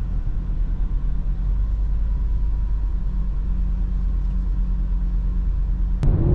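Audi RS3's five-cylinder engine running steadily at low revs with an even low rumble and no revving. A sharp click comes near the end.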